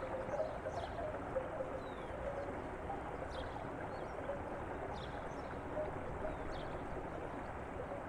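Flowing water, a steady rush and trickle, with a few faint short high ticks scattered through it.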